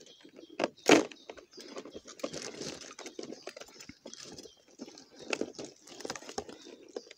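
Rustling of a mesh crayfish trap being handled, with scattered clicks and taps, a sharper one about a second in, as live crayfish are picked out of the netting and put into a plastic jar.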